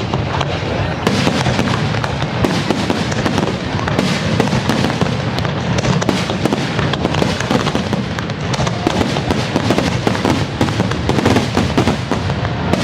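Fireworks display: a dense, continuous barrage of bursts and crackling with no let-up, over a steady low rumble.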